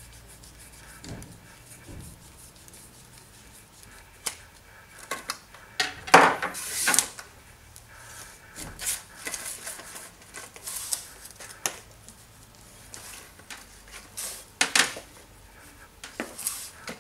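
Parts of a telescopic insecticide-dusting lance being handled and fitted together: scattered clicks, knocks and rubbing, with a louder clatter about six seconds in and a few more knocks near the end.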